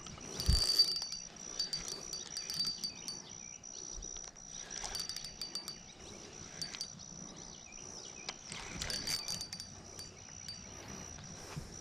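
A steady high insect trill with a second, broken, slightly lower note coming and going, over scattered sharp clicks and a brief low thump about half a second in.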